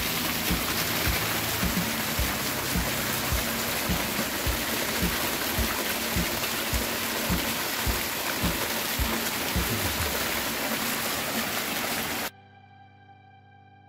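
Strong jet of water from a solar submersible deep-well pump with two 12T impellers gushing and splashing into a plastic tub, a steady rushing noise with a low pulsing underneath. It cuts off suddenly near the end and soft piano music takes over.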